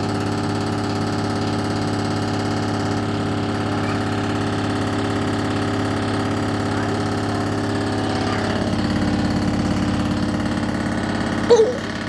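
Beko washing machine on its spin cycle, running with a steady hum and vibrating hard enough that the machine walks across the floor. It gets a little louder about two-thirds of the way through, and there is one brief loud knock near the end.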